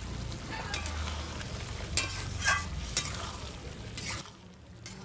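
A spatula stirring simmering egg curry in a large metal karahi, with several sharp scrapes and knocks against the pan. A low rumble drops away about four seconds in.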